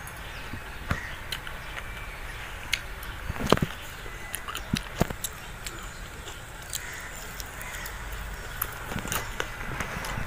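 Someone chewing fried bitter gourd: irregular crunches and mouth clicks, a few louder ones around the middle.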